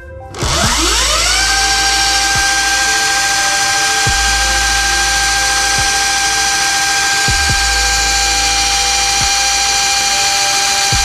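Segway electric dirt bike's motor, run by an ASI controller, spinning the lifted rear wheel under throttle. A whine rises over about a second as the wheel spins up, then holds a steady pitch, with a low hum and a faint tick every second or two.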